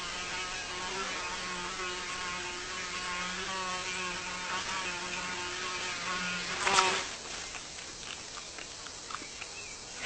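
A fly buzzing, its pitch wavering up and down as it moves about, for nearly seven seconds. Then comes a sudden loud sound, the loudest moment, and the buzzing stops, leaving a few faint clicks.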